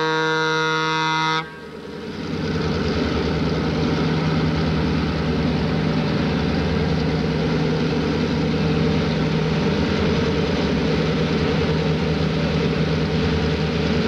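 EMD F7 diesel locomotives at the head of a passenger train: an air horn sounding that cuts off about a second and a half in, then the engines and train running steadily, growing louder over the next second as the train approaches and holding there.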